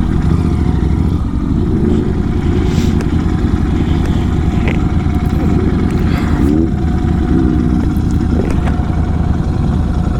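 Superbike engine running steadily at riding speed, a dense low rumble that holds level.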